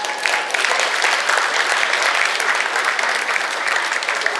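Audience applauding, a steady patter of many hands clapping that builds just after the start.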